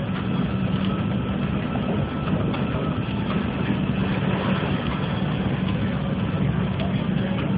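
City bus heard from inside its cabin on a downhill run: the diesel engine's steady low hum under a constant clatter and rattling of the bodywork and fittings.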